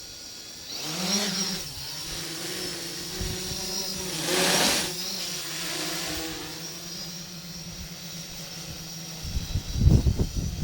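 Yuneec Typhoon H hexacopter's six electric motors and propellers spinning up with a rising whine about a second in, and a louder rush of propeller noise around four and a half seconds in. They then settle into a steady hum. Near the end, gusts of wind buffet the microphone.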